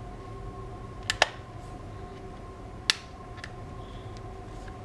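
Sharp plastic clicks from the snap-on back cover of a Microsoft Lumia 950 XL being pried off its clips: two close together about a second in and one near three seconds, over a faint steady hum.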